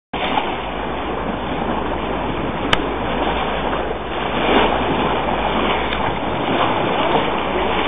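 Steady rush of wind and sea-water noise aboard a boat on open water, with a low steady rumble underneath. A single sharp click comes a little under three seconds in.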